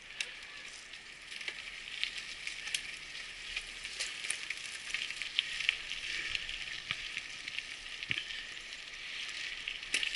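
Mountain bike climbing a dirt trail: a steady hiss of tyres rolling over loose gravel and grit, with scattered small clicks and ticks of stones and the drivetrain.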